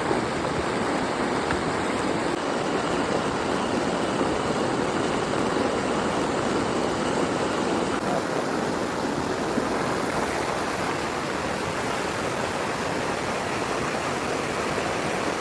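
Hot oil sizzling steadily as chicken wings deep-fry.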